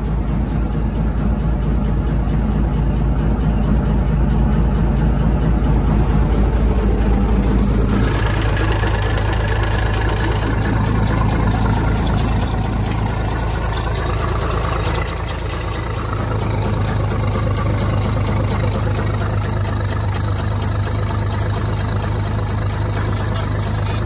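Komatsu WA180 wheel loader's diesel engine running steadily with a rod knock, the failure that has finished the engine. Its sound shifts about eight seconds in.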